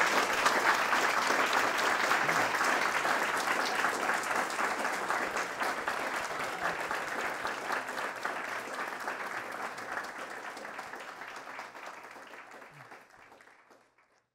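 Audience applauding, the clapping slowly thinning out and fading away near the end.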